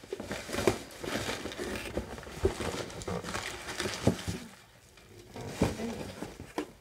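A cardboard subscription box being handled and tipped while things are taken out of it: rustling and crinkling of the packaging, with several light knocks and taps. There is a quieter moment a little past the middle.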